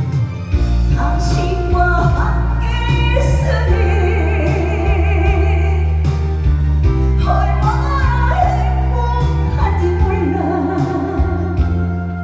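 A trot song performed live: a singer's voice with vibrato over a recorded backing track with a steady bass line and beat, heard through a PA system.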